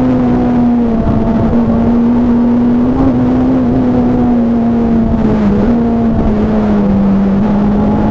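Rally car's engine heard from inside the cockpit, driven under power along a stage. Its note holds nearly steady in pitch, with a few small dips and lifts, over loud road and tyre noise.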